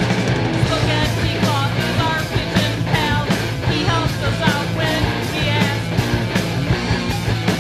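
Loud rock band recording: drums with regular hits, guitars and a steady bass line, and high lines that glide up and down in pitch through the middle.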